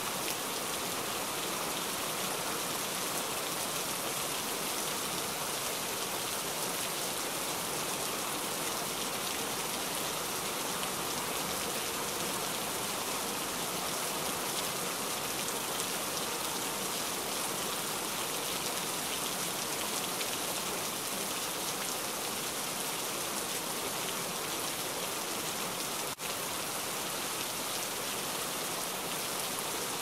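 Steady rain falling on a camping tent, an even, unbroken hiss of drops. Late on there is a split-second dropout in the sound.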